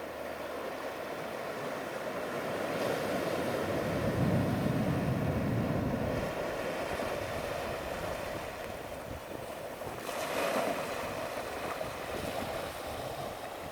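Ocean waves washing into the shore: a steady surf hiss that swells about four seconds in, with a brighter wash about ten seconds in. Some wind buffets the microphone.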